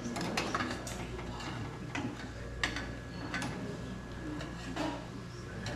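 Scattered light clicks and knocks from kitchen utensils and containers being handled, over a steady low hum.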